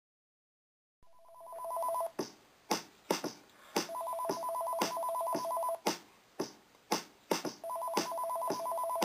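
Telephone ringing in the opening of a song recording: three warbling two-tone rings, each about two seconds long, the first starting about a second in. Sharp clicks fall between and across the rings.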